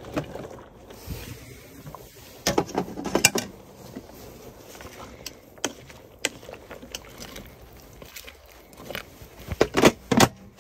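Scattered knocks and clatter of cookware and utensils being handled, in a cluster a few seconds in and again near the end.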